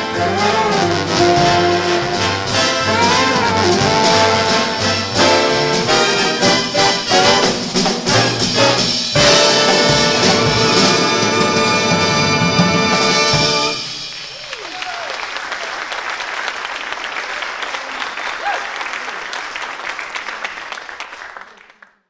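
Big band of saxophones, trumpets, trombones, piano, bass and drums playing the closing bars of a jazz tune, ending on a long held chord that cuts off about thirteen seconds in. The audience then applauds, fading out near the end.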